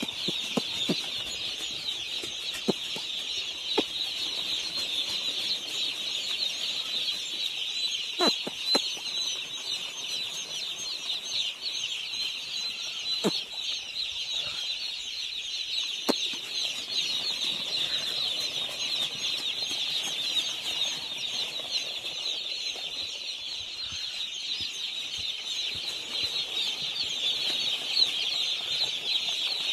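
Dense, continuous peeping of a large flock of day-old chicks, many high chirps overlapping, with a few sharp taps now and then.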